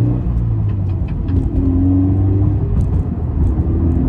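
Toyota 86's 2.0-litre flat-four engine under hard acceleration, heard from inside the cabin: the engine note climbs in pitch, drops back and climbs again.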